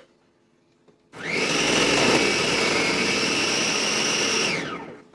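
Electric countertop food processor running and chopping Brussels sprouts pushed down its feed chute. The motor whine starts about a second in, holds steady and winds down near the end.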